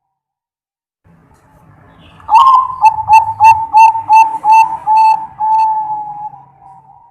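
Zebra dove (perkutut) cooing. About two seconds in, a rising opening note is followed by a run of about nine short, clipped coos at roughly three a second, ending on one long drawn-out coo.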